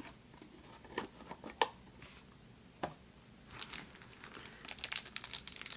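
Faint crinkling of foil Pokémon booster pack wrappers being handled: a few separate ticks at first, then denser crinkling over the last couple of seconds.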